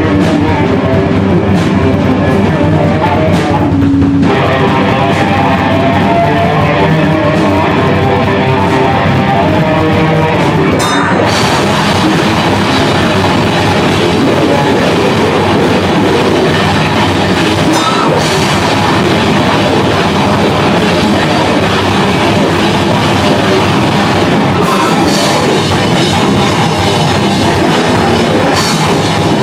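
Loud live rock band playing a song, with drum kit and guitar; the sound grows fuller about eleven seconds in.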